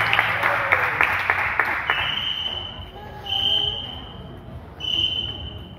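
Audience applause, with dense clapping that dies away over the first two seconds. Then come three short, high whistle tones about a second and a half apart.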